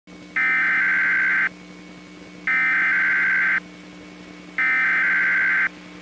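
NOAA Weather Radio EAS SAME header: three loud, buzzy digital data bursts about a second long, a second apart, each warbling between two high pitches, over a steady low radio hum. They are the coded header that opens an emergency alert broadcast.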